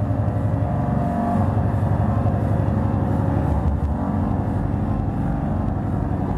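Speedcore played loud over a club sound system: an extremely fast, distorted kick drum hammering so quickly it blurs into an engine-like buzz, with a held synth tone over it in places.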